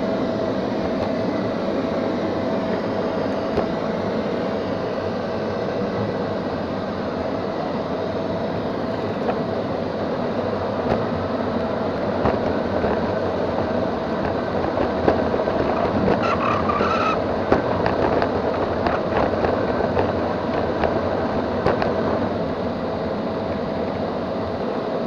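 Neato XV-21 robot vacuum running: a steady whirring with a constant whine, and scattered clicks and knocks as it moves. A short higher-pitched sound comes about sixteen seconds in.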